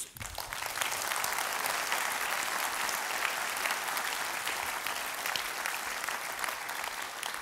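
Large audience clapping in a warm round of applause in a big hall, a dense spread of hand claps that starts at once and thins out toward the end.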